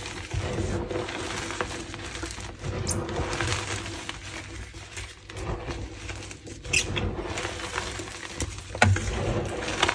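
Hands squeezing and crumbling a heap of pink-pigmented gym chalk: soft powdery crunching of chalk lumps breaking apart, with a few sharper cracks.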